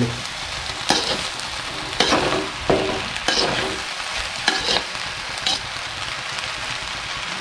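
Fried rice sizzling in a wide metal pan while a metal spoon stirs it. The spoon scrapes against the pan about once a second over a steady sizzle.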